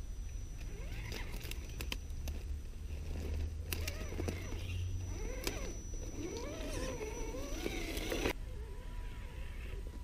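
Axial Honcho RC rock crawler's small electric motor and drivetrain whining, the pitch rising and falling with the throttle as it climbs over granite boulders, with sharp clicks and knocks of tyres and chassis on stone. Wind rumbles on the microphone, and the whine cuts off suddenly a little after eight seconds.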